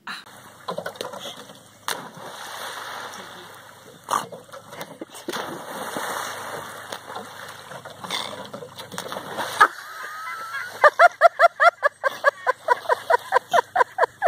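Water splashing and sloshing as dogs swim in a pond. From about ten seconds in, this gives way to a fast run of loud, high yelping calls, about four or five a second.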